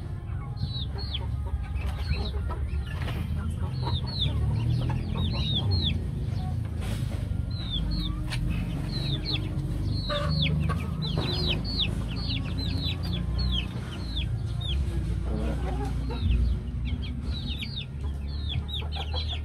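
A pen of young chickens peeping: many short, high calls that fall in pitch, overlapping thickly in the middle stretch. A steady low rumble runs underneath.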